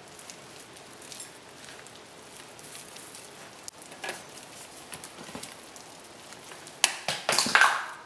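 Wooden spoon stirring thick oatmeal cookie dough in a glass mixing bowl, with a quick run of loud knocks and clatter near the end.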